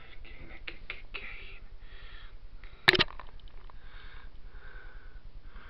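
A black-and-white domestic cat sniffing close to the microphone in a run of short puffs of breath, with one sudden sharp, loud noise about three seconds in.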